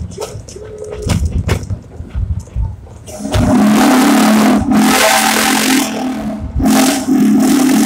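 Steam locomotive's three-chime whistle blowing loud and steady from about three seconds in, in three blasts separated by two short breaks. Before it, scattered knocks from the moving train.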